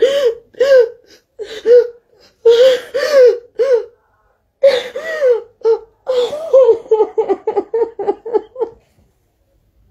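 A woman sobbing hard into a cloth held over her mouth and nose: long, pitched, broken cries with gasping breaths between them. Near the end they turn into quick, short sobs, about four a second, then stop.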